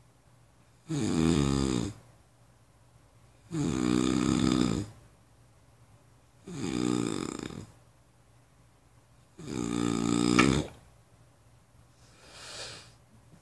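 A person snoring, five rasping snores about one every three seconds, each lasting about a second, the last one fainter.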